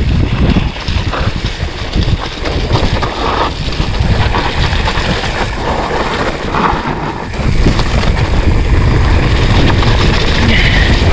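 Wind rushing over the microphone of a mountain bike descending a rough, grassy dirt trail, with the rumble and rattle of the bike over the bumps. It gets louder a little past halfway through as the bike speeds up.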